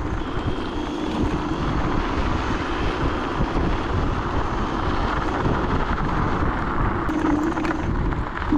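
Wind rushing over the microphone and road rumble from a Dualtron Thunder 2 electric scooter riding at speed, with a low steady hum that grows louder near the end.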